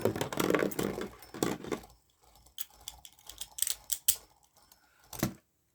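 Beyblade Burst tops clattering and clicking against each other and the plastic stadium wall during a battle: dense rapid clicking for about two seconds, then scattered single clicks, and one sharper knock near the end.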